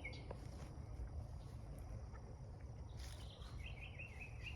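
Birds chirping: a quick run of short repeated chirps right at the start and another from about three seconds in, over a faint low rumble.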